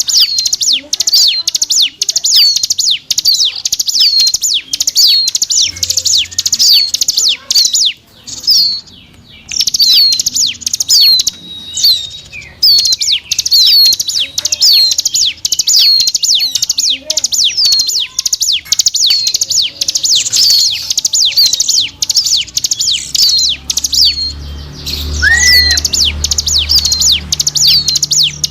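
Ciblek gunung (a prinia) calling as a bird-lure recording: a fast, unbroken stream of high, sharp chirps with a hooked note about once a second, pausing briefly about eight seconds in. Near the end a single lower whistle and a low hum join in.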